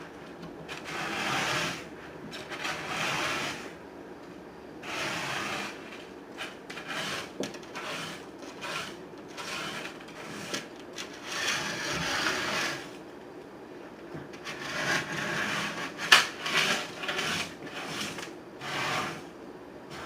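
Aquarium gravel being spread and leveled by hand, scraping and crunching in irregular strokes of a second or two, with a few sharp clicks of stones near the end.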